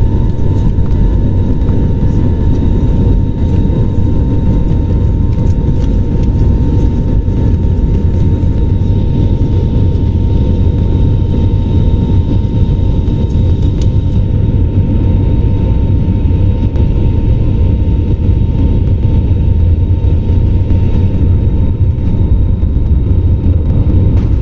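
Cabin noise inside an Airbus A321neo rolling on the runway: a loud, steady low rumble of engines and wheels, with a faint steady whine above it.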